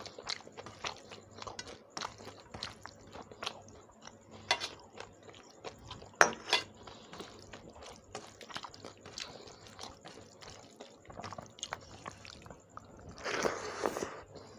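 Close-miked eating by hand: rice and shrimp curry being chewed with wet mouth clicks and smacks, and fingers squishing and mixing wet rice on a steel plate. A sharp click about six seconds in, and a louder noisy stretch of about a second near the end.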